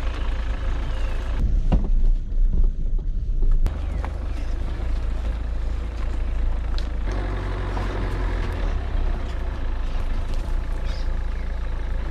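Vehicle engine running slowly at low revs, a steady low rumble, as it crawls along a rough dirt track. A louder stretch of thumps and jolts comes between about one and a half and four seconds in.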